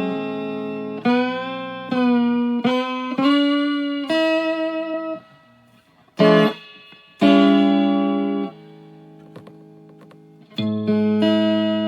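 Electric guitar played through an amp: a series of strummed chords left to ring and fade, some with bent, wavering notes about one to four seconds in. Quieter gaps follow, broken by single held chords.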